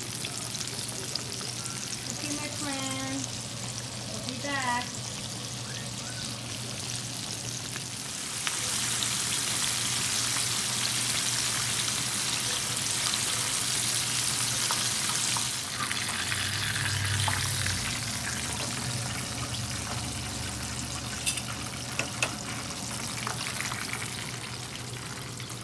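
Flour-coated chicken drumsticks deep-frying in oil in a cast iron skillet: a steady sizzle that swells louder for several seconds through the middle, with a couple of sharp clicks near the end.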